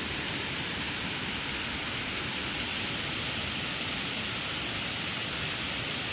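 Steady, even hiss of rushing water at the dam.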